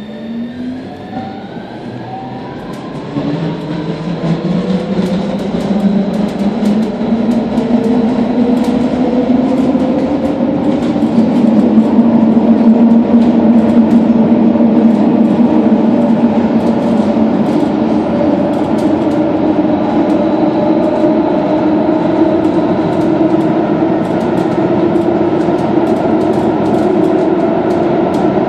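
Milan Metro Line 5 driverless train (AnsaldoBreda Driverless Metro) accelerating away from a station, heard from inside the front car: a motor whine rises in pitch as the running noise grows louder over the first dozen seconds. It then settles into a steady drone and rumble at speed, with light clicks from the rails.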